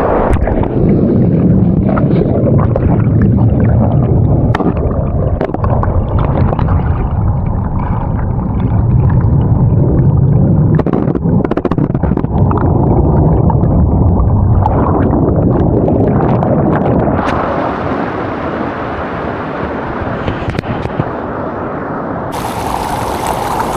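Waterfall water rushing and churning, heavy and muffled, with gurgles and pops. The sound turns brighter and clearer about two thirds of the way through.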